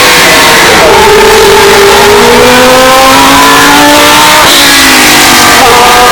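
Historic Formula One car engine revving hard under acceleration. The pitch climbs steadily and drops at upshifts about a second in and twice more near the end. The audio is boosted to constant, heavy distortion.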